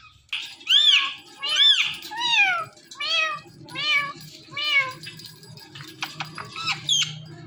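Indian ringneck parakeet mimicking a cat's meow: about six arched meows in quick succession, each rising then falling in pitch, followed by a few short chirps and clicks near the end.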